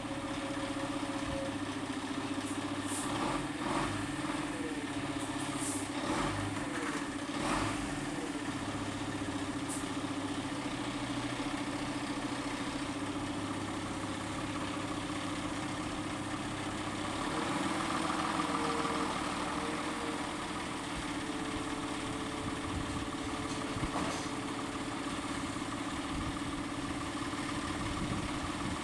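Fire-engine engines, a Renault Manager G270 and a Żuk GLM, running steadily at idle in their garage bays. There are a few knocks in the first several seconds, and the engine sound swells briefly a little past the middle.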